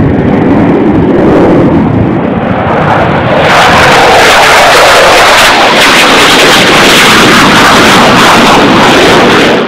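Jet engine roar of F-15 fighter jets making low-level passes. A deeper rumble for the first few seconds, then at about three and a half seconds a sudden change to a louder, hissier roar. It cuts off abruptly at the end.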